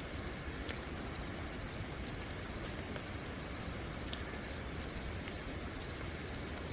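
Steady rain falling, with crickets chirping in a continuous high trill over it and a few sharp drip ticks standing out.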